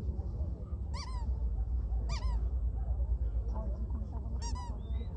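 A dog giving three short, high-pitched yelps, the third after a longer pause, over a steady low rumble and background chatter.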